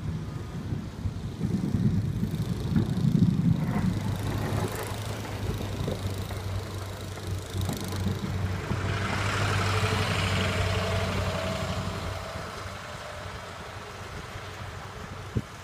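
Pickup-based snowplow truck driving past on a snowy street: a steady low engine hum that swells and then fades, with a rising and falling hiss of tyres in slush. A single sharp click near the end.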